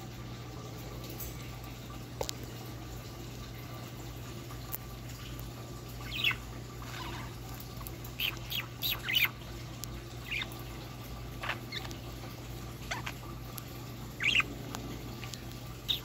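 Budgerigars giving short, sharp chirps and squeaks in little clusters, starting about six seconds in, over a steady low hum.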